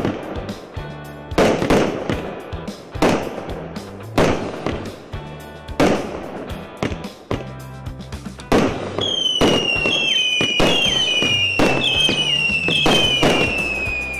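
A 99-shot consumer fireworks cake firing shot after shot, a sharp bang about every second. From about nine seconds in, whistling tails that fall in pitch sound over the bangs, several overlapping.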